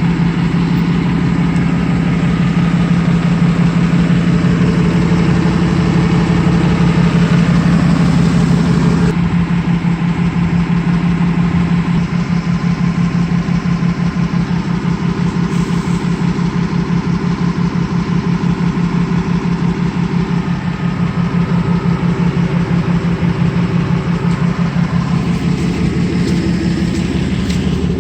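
Truck's V8 engine idling steadily, with an even pulsing exhaust note.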